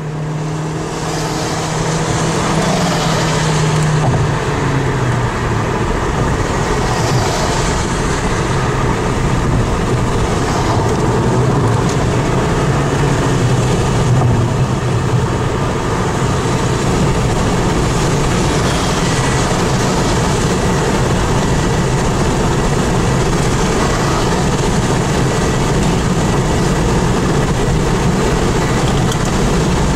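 Steady road and wind noise from a car driving at highway speed, with a low engine hum that drops slightly in pitch in the first few seconds.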